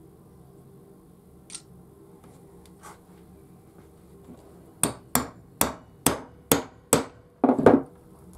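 Claw hammer striking on the workbench: six sharp blows about half a second apart, then a quick run of three or four more. A single small click comes before them, about a second and a half in.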